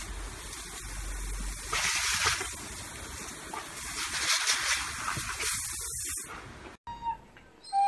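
Garden hose spraying a jet of water onto a Doberman, a steady hiss that swells in several surges. The spray cuts off abruptly near the end, and a dog's high howl begins faintly.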